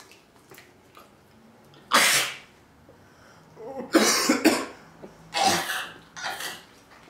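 A young man coughing hard in a series of short, harsh coughs, head bent forward after eating cold canned ravioli: the first comes about two seconds in, then a quick cluster near the middle and two more toward the end.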